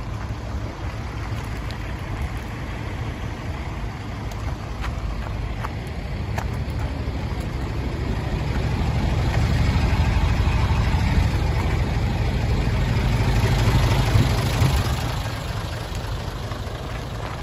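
Hino Ranger crane truck's H07D inline-six diesel engine idling steadily. It grows louder through the middle as the microphone comes down near the underside of the truck, then eases off near the end.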